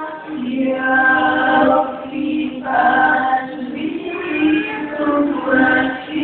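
Choir singing held chords in short phrases, with brief breaks between phrases.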